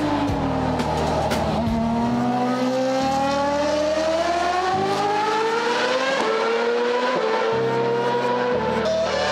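Formula 1 car engine accelerating on track, its pitch climbing steadily through the revs. It drops sharply at a gear change about six seconds in and again near the end, then climbs again each time.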